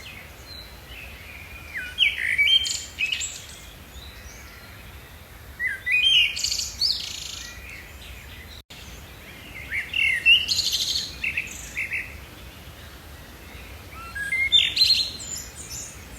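A songbird singing short, quick phrases of chirps and trills, one about every four seconds, over a faint steady outdoor hiss.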